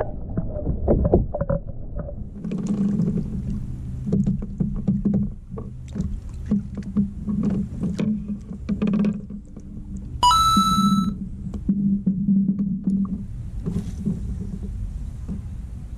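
Handling noise aboard a pedal fishing kayak: knocks and clicks over a low hum, with a short high beep about ten seconds in.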